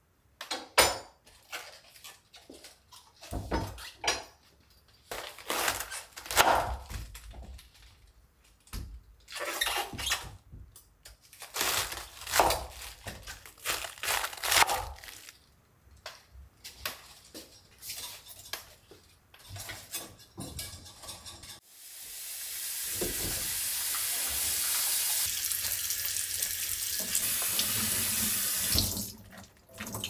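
Washing at a kitchen sink: irregular clattering and splashing of things being handled under water. About three-quarters of the way through, the faucet runs in a steady stream for about seven seconds, then is shut off.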